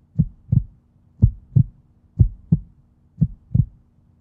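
Heartbeat sound effect: paired lub-dub thumps repeating about once a second, over a faint steady low hum.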